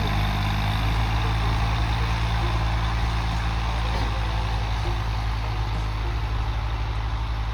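Turbocharged Swaraj 855 tractor's diesel engine running steadily under load, pulling a 13-tine cultivator, with a low, evenly pulsing drone.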